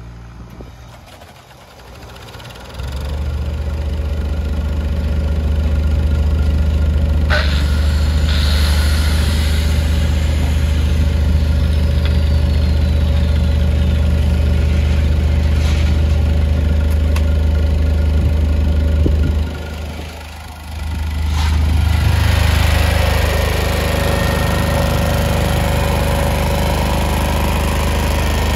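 Stephill SSD6000 generator's single-cylinder Yanmar diesel engine starting up about three seconds in, then running steadily. Around twenty seconds in its sound drops for about a second, then picks up again with an added high hiss.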